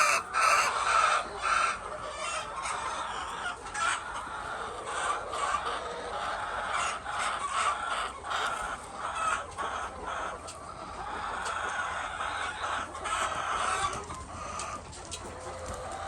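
A large flock of laying hens clucking continuously in a dense, overlapping chatter, with many short sharp clicks mixed in.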